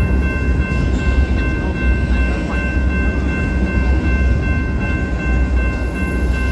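Union Pacific ballast hopper cars rolling past: a steady low rumble of wheels on rail, with a few steady high tones over it.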